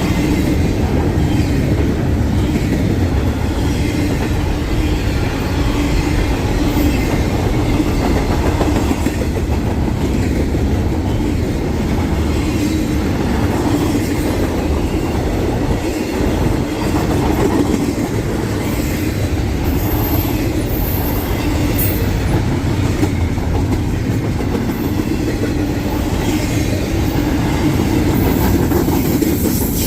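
Freight train cars rolling past on steel wheels, a steady clattering rumble, with a brief high wheel squeal about twenty seconds in.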